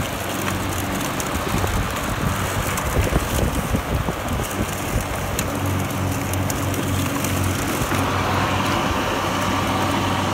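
Greenworks 60-volt battery self-propelled lawn mower running steadily while it mulches tall grass, its blade hum growing stronger about halfway through.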